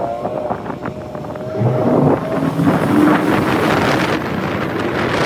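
Bass boat's outboard motor running as the boat speeds across the lake, with wind buffeting the microphone and water rushing past the hull. A steady whine sags slightly and fades about two seconds in, as a lower engine note rises and the wind noise grows louder.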